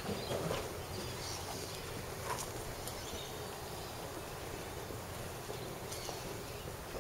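Outdoor ambience: a steady hiss with a few short, faint bird chirps.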